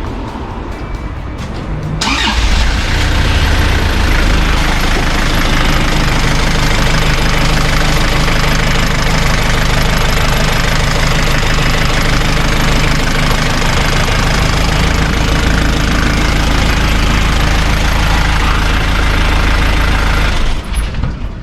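Isuzu Elf NHR69's diesel engine starting about two seconds in and running steadily, heard loudly with the cab tilted up over it, then shut off near the end. The power steering fluid is low and foaming.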